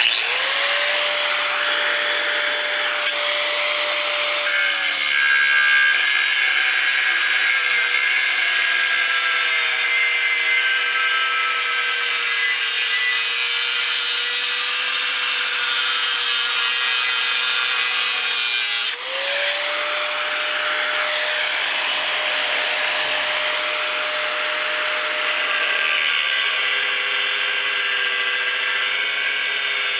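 Porter Cable 6-amp angle grinder with an abrasive cut-off wheel cutting steel angle iron, over a loud grinding hiss. The motor starts with a rising whine, then drops in pitch as the wheel bites into the metal. About two-thirds of the way through it briefly slows, spins back up to its free-running whine, and drops again as it goes back into the cut.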